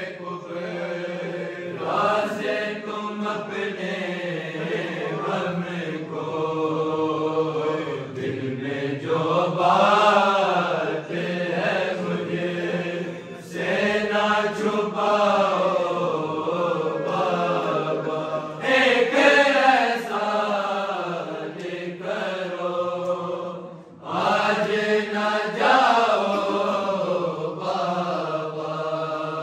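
Unaccompanied men's voices chanting an Urdu noha, a mourning lament for Imam Ali, in long wavering melodic phrases. A low steady note is held beneath the melody, and there are short breaths between phrases.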